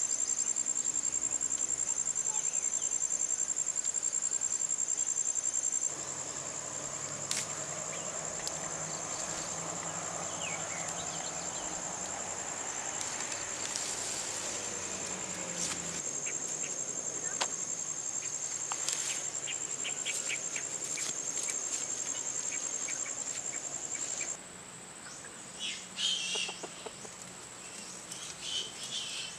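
Steady high-pitched insect drone, like crickets or cicadas, with a few sharp clicks scattered through it and some short chirps near the end.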